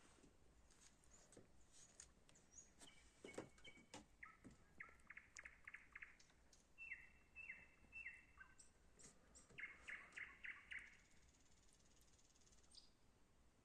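Birds chirping faintly: two quick runs of repeated notes and three short down-slurred calls in between.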